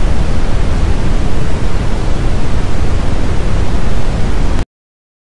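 Loud, steady television static hiss that cuts off abruptly about four and a half seconds in.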